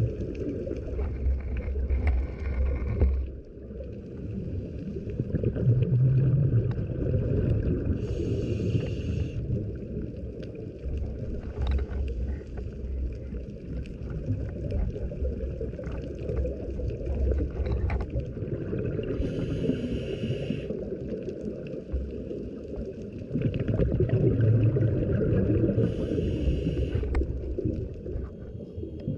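A scuba diver breathing through a regulator, heard underwater over a steady water rush: a hissing inhalation three times, after low rumbling bursts of exhaled bubbles.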